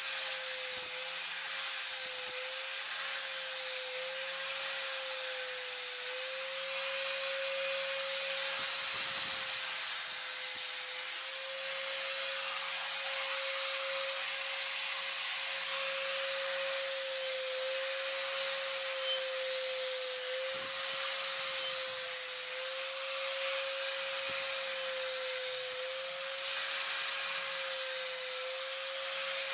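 A small motor running steadily, a slightly wavering whine over a constant hiss.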